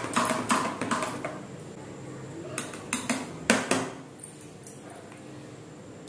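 Steel kitchen utensils clinking and clattering against each other: a quick run of small clinks over the first second, then a few louder, separate clinks around three to four seconds in.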